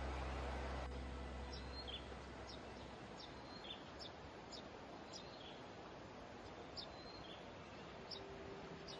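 A small bird chirping repeatedly, short high calls about once a second, over a faint steady hiss of ambient noise.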